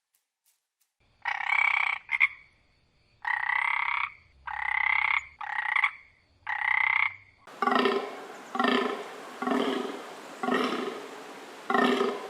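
Animal calls. About six short calls come in the first half, then a different, deeper call repeats about once a second.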